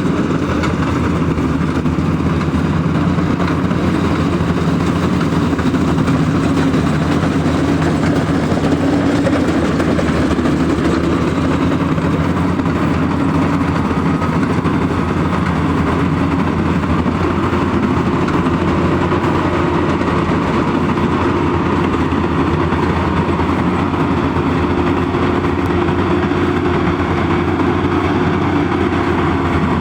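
Rice combine harvester's diesel engine running steadily, its tone shifting slightly about halfway through.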